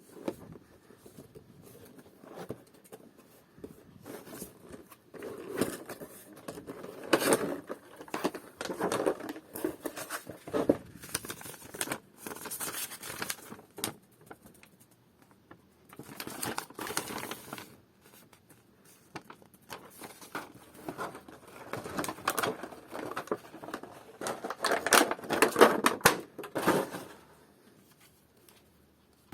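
Irregular crinkling and rustling handling noises in bursts, with a couple of short pauses.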